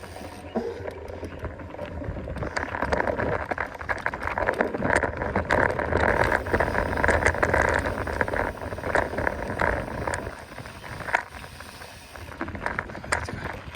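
Mountain bike rolling over rough ground: steady tyre noise with many quick rattling clicks from the bike, over a low rumble, loudest in the middle and easing off near the end.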